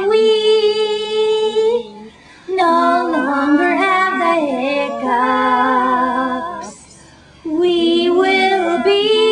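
Singing, female: long held notes in three phrases with short breaks between them, about two seconds and about seven seconds in.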